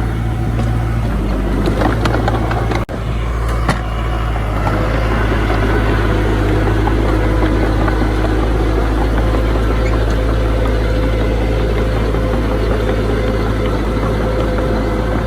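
Heavy diesel engine of earthmoving machinery running steadily with a deep, even rumble. A few sharp knocks sound between about two and four seconds in, with a sudden brief dip near three seconds.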